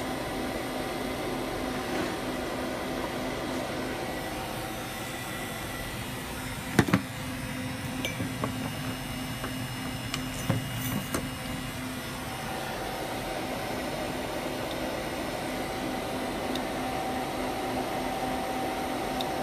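Steady mechanical hum and hiss from a running IEC fusor rig, with a faint steady whine. A sharp knock about seven seconds in, and a few sparse clicks between eight and eleven seconds.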